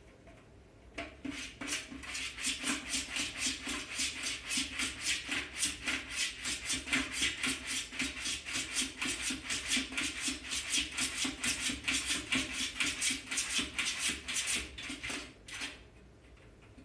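A kitten's front paw scratching over and over at a plastic toilet training seat and into the bowl, a digging motion at about four scrapes a second that starts about a second in and stops a little before the end.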